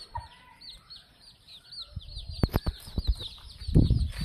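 Chicks peeping over and over in high, short, falling chirps, with a hen's brief cluck early on. A few sharp taps come about halfway through, and a low thump near the end is the loudest sound.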